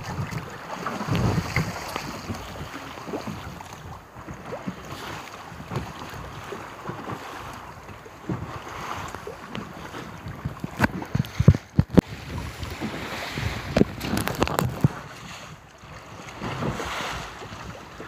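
Wind buffeting the microphone and sea waves washing against the hull of a small wooden sailing boat, with a few sharp knocks a little past the middle.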